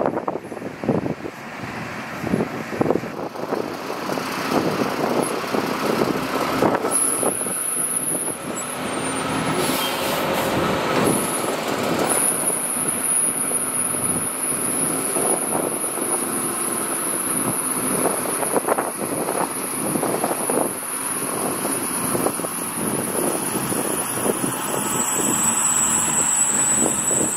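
Heavy diesel earthmoving machinery working, its engine running under load with irregular clanking and rattling throughout and a steady high whine.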